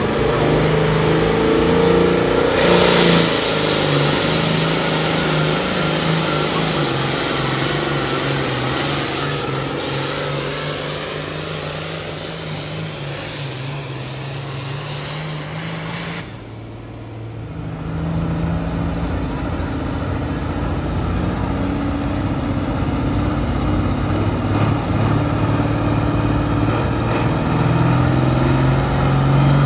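Farm tractor engines at a tractor pull, running hard under load while pulling a weight sled, with a steady engine drone and clouds of black diesel smoke. The sound drops off abruptly about sixteen seconds in, then another tractor's engine picks up and builds toward the end.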